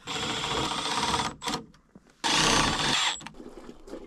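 Two bursts of rapid mechanical rattling, about a second each, from tool work on black iron gas pipe fittings.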